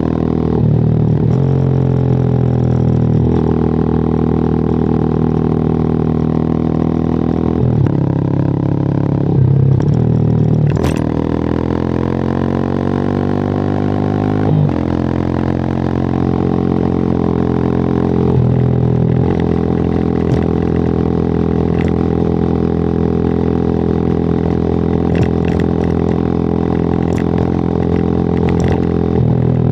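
WMOTO Hawk 200i motorcycle engine and exhaust running under way, its note held steady for long stretches with several short breaks and changes in pitch, and a rising rev a little over ten seconds in.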